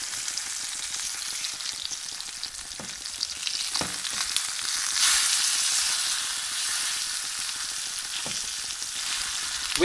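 Spice-crusted sea bass steaks sizzling in oil in an enamelled cast-iron skillet, with a few taps of a slotted spatula against the fish and pan. The sizzle grows a little louder about halfway through.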